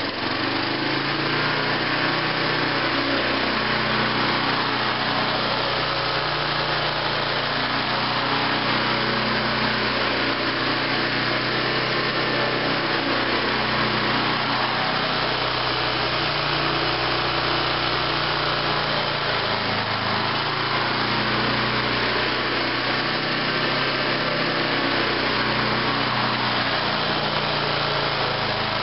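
Riding lawn tractor's engine running steadily as the tractor drives slowly, towing a packer over loose dirt.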